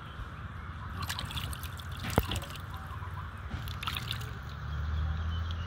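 Water dripping and trickling into a plastic basin as a baby monkey is washed by hand, in two short bouts of small splashes. A single sharp click about two seconds in is the loudest sound.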